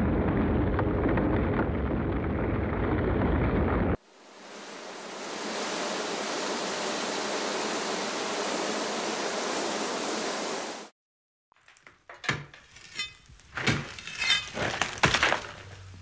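A sequence of sound effects: a low, steady rumble that cuts off about four seconds in, then a steady hiss that fades in and stops abruptly near eleven seconds. After about a second of silence comes a run of sharp, irregular clicks and knocks.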